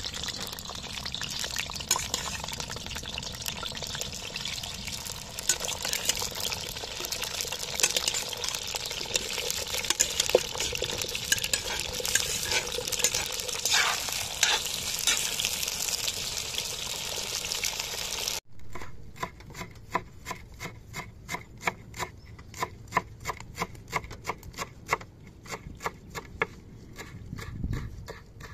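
Potato pieces sizzling as they fry in oil in a cast-iron cauldron, with the scrape and clatter of a slotted spoon stirring them. About two-thirds of the way through it cuts off suddenly to a steady run of knife strokes chopping dill and parsley on a wooden board.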